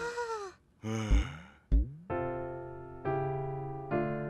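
A character's short wordless vocal sounds and two low thuds, then a piano playing three sustained chords about a second apart, each struck and left to ring down.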